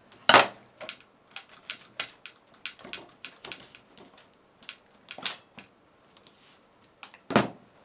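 Irregular clicks and knocks of a KitchenAid stand mixer's gear case being worked loose and lifted off its housing, with screwdrivers set down on the table. A louder knock comes near the start, another about halfway, and one near the end.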